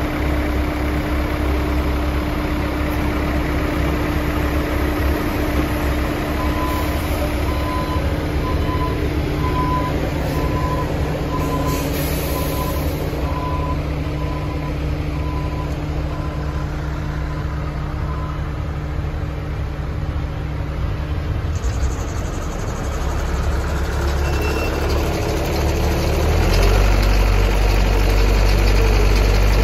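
Engine running steadily while a loaded conveyor carries loose dirt. A faint regular beeping sounds through the middle part, and the low drone gets louder near the end.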